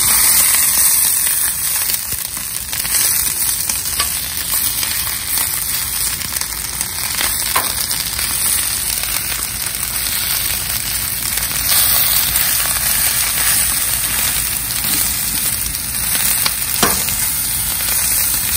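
Tomatoes and serrano chilies charring in olive oil on a Blackstone flat-top griddle: a steady sizzle with a few sharp crackles.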